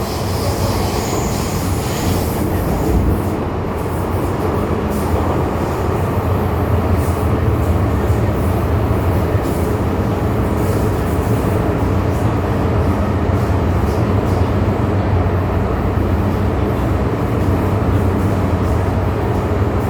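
MTR M-Train metro car running at speed, a steady rumble of wheels on rail with a low hum from the running gear. A faint high wheel squeal in the first couple of seconds fades out.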